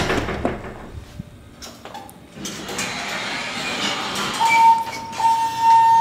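Elevator hall call button pressed with a click, then the elevator doors sliding open. About four and a half seconds in, a steady single tone starts and holds with a brief break.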